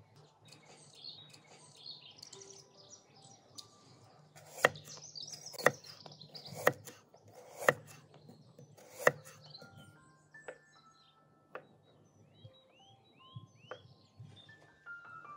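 Knife chopping through a raw carrot onto a wooden cutting board: five sharp chops about a second apart. Small birds chirp and sing throughout.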